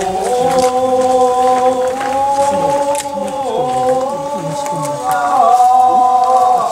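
A group of men chanting in one long, drawn-out sung note, held steady with a small dip partway through, with other voices moving beneath it.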